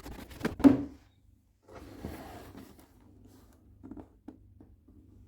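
Cardboard sneaker box being handled: a quick run of knocks and clicks, the loudest under a second in, then a short rustle about two seconds in and a few light taps near the end.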